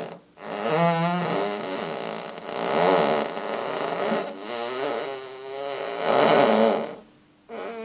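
Farts: a long run of drawn-out, wavering, pitched farts with short breaks between them, then a short one near the end.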